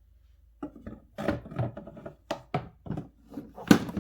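Dirty-water container being handled under a play-kitchen sink: a run of irregular knocks and clunks, the loudest near the end.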